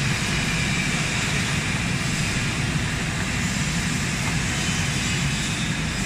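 Industrial fruit and vegetable washing machine running: a steady mechanical hum under the even hiss of water churning and bubbling in its washing tank.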